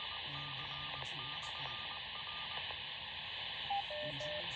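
Two-way radio receiver hiss with a faint voice underneath. Near the end comes one short high beep, then two short lower beeps, in the manner of an amateur-radio repeater's courtesy tone after a transmission ends.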